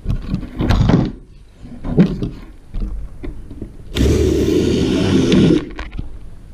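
Cordless drill running steadily into the wooden top of a plywood marten box for about a second and a half, starting about four seconds in. Before it, a few short knocks and clatters as the wooden pieces are handled and set in place.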